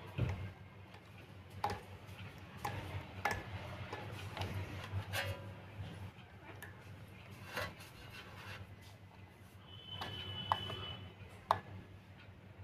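Irregular small clicks and scrapes of a small tester screwdriver turning the screws of a plastic wire terminal block on a ceiling fan motor, with the wires being handled, over a faint low steady hum.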